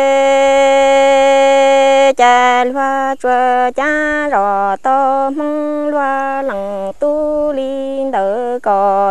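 Unaccompanied Hmong kwv txhiaj sung poetry by a single voice. It holds one long note until about two seconds in, then sings a run of short syllables that step up and down between a few pitches.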